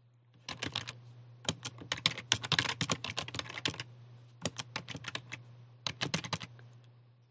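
Computer keyboard being typed, quick runs of key clicks in four bursts with short pauses between them.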